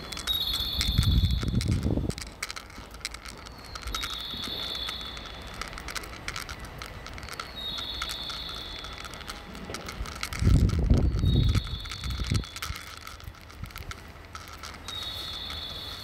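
Recorded bird-chirp signal played over a station's loudspeakers, a short electronic tweeting call repeating five times, about every four seconds; in Japanese stations this sound marks where the stairs are for blind passengers. Two louder low rumbles come about a second in and about ten seconds in.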